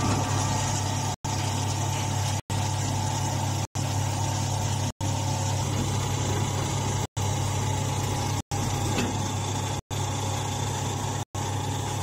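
Hydraulic grass baler's motor and pump running steadily: a low hum with a faint higher whine, cutting out for an instant every one to two seconds.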